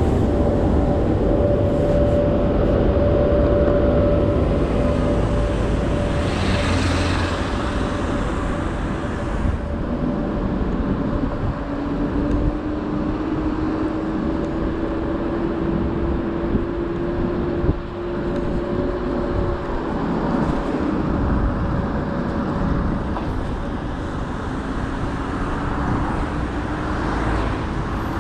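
Segway Ninebot F2 Pro electric scooter riding uphill: its motor whine slowly rises in pitch as the scooter gains speed, alongside a steadier higher whine, over heavy wind and tyre rumble on asphalt. A louder rush of noise passes about six seconds in, and there is a brief knock past the middle.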